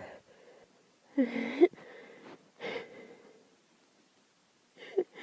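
A woman's breathy vocal sounds while she holds back a sneeze during an allergy attack: one voiced gasp about a second in that breaks off sharply, then two shorter breaths.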